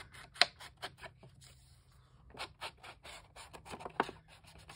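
Foam ink blending tool dabbed and rubbed along the edges of paper, an irregular run of short scratchy taps and scrapes, with a sharper tap about half a second in and another near the end.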